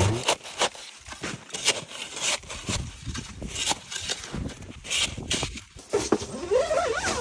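Small snow shovel digging and tossing snow against the skirt of a pop-up ice fishing shack to bank it down, in a run of irregular crunching, scraping strokes.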